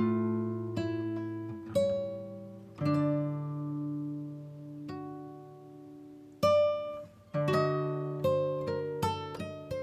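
Background instrumental music of single plucked notes, slow and ringing at first, then coming faster over the last couple of seconds.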